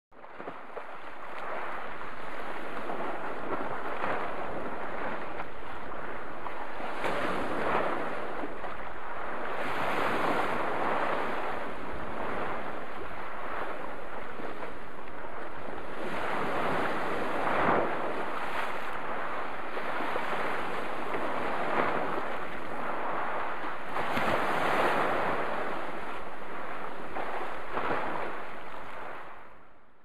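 Sea waves washing in over shore rocks: a steady rush of surf that swells several times as waves break and churn into foam.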